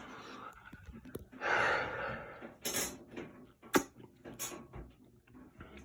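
A soft breath-like exhale, then a few scattered, irregular clicks.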